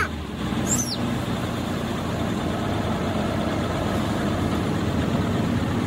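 A large engine idling steadily, with a brief high falling squeak about a second in.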